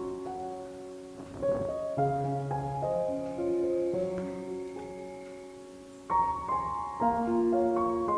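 Background piano music: a gentle keyboard melody of held notes and chords.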